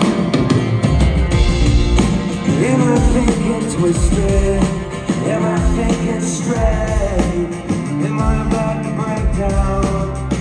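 Live rock song led by a strummed acoustic guitar. A band with deep bass comes in about a second in, and a male voice sings from a few seconds in.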